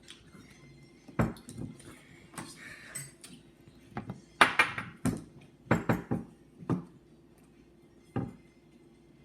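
Spoons clinking and knocking against soup bowls while eating, a string of separate clinks with the loudest about four and a half seconds in.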